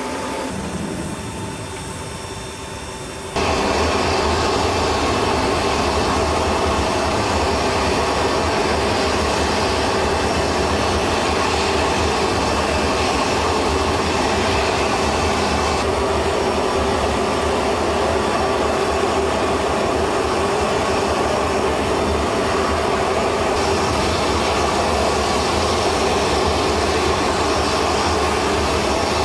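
Steady, loud aircraft engine noise that comes in suddenly about three seconds in, after a quieter start, and changes slightly in character twice later on.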